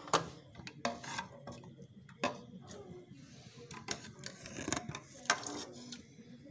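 A spoon clinking and scraping against the inside of a metal pressure cooker as cooked dal is served out, in a dozen or so irregular sharp knocks.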